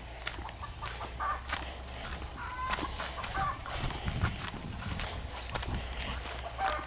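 Farm poultry clucking in short, scattered calls, with light clicks among them.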